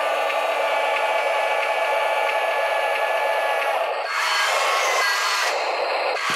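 Huina radio-controlled wheel loader's small electric motors whining through their gearboxes as it drives and lowers its bucket arm. The sound changes about four seconds in, with a rising whine.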